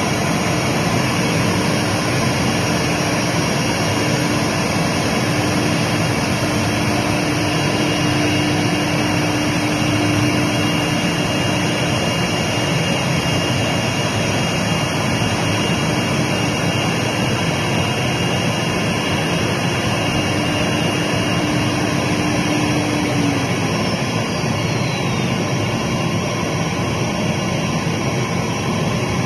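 Multi-spindle woodworking CNC router running: loud, steady machine noise with a steady tone that cuts off about 23 seconds in.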